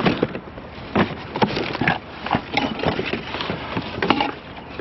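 Rummaging through a pile of boxes and discarded items: irregular knocks, clunks and rustles as things are moved and set down.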